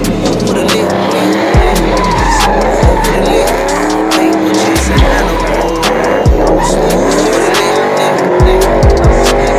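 A car's tyres squealing in long wavering tones with the engine revving while it spins donuts. Music with a heavy bass beat plays underneath.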